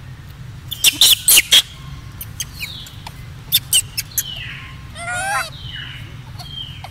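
High-pitched animal calls: a quick cluster of sharp chirps about a second in, then several high squeals that fall in pitch and a short rapid warbling call a little past the middle, over a steady low hum.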